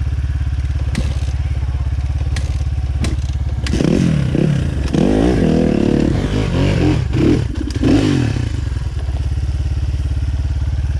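Dirt-bike engines on a rocky trail climb: a steady low running throughout, with an engine revving up and down hard for about four seconds in the middle, and a few sharp knocks and clatters.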